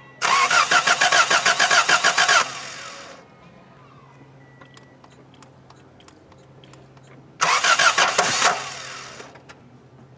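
A 1986 Honda Civic Wagon's D15A2 engine being cranked over by its starter twice, after a head gasket replacement. The first crank lasts about two seconds and the second, near the end, about one second, each with a rapid, even pulsing.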